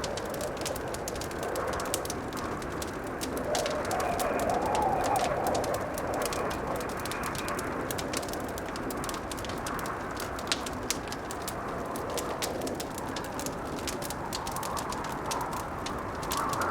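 Blizzard wind howling in slow swelling gusts, with a wood fire crackling over it in frequent small sharp pops.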